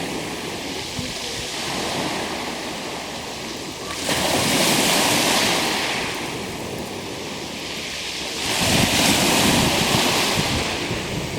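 Black Sea waves breaking on the shore, a rushing surf that swells into a louder wave about four seconds in and again near the end, with some wind on the microphone.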